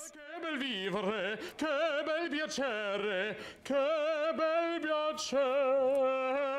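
A man singing unaccompanied in an operatic baritone, holding long notes with a wide vibrato, with a short breath break about three and a half seconds in.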